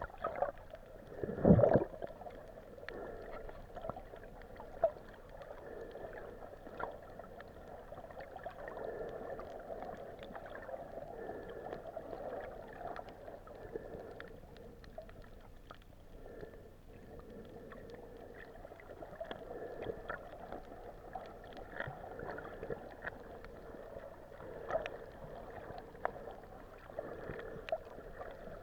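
Muffled underwater noise heard through a hand-held camera's housing, with many faint scattered clicks and one loud low thump about a second and a half in.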